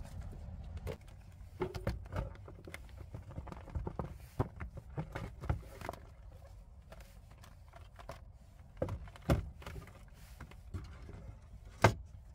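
Items being handled in a wooden storage crate: scattered knocks and clatter, then one sharp wooden knock near the end as the crate's hinged lid is shut.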